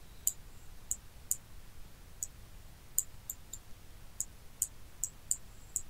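Computer mouse clicking: about a dozen short, light clicks at an uneven pace as nodes are connected and dragged.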